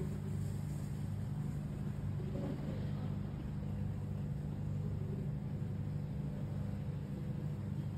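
A steady low hum.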